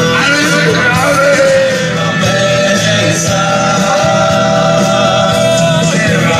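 Music with a singing voice, a melody with long held notes over a steady accompaniment.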